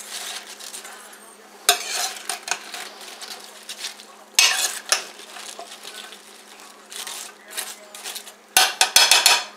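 Metal spoon stirring chopped cabbage in a metal stockpot, scraping and clinking against the pot's sides in several bursts, the loudest and busiest clatter near the end.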